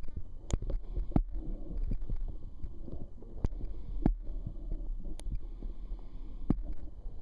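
Muffled low underwater rumble with about half a dozen sharp knocks at irregular intervals, as picked up by a submerged camera.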